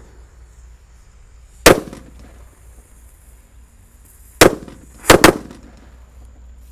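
Sunflower firework going off inside a hole in the ground: a faint fizz, a sharp bang under two seconds in, then three more bangs in quick succession about four and a half to five seconds in.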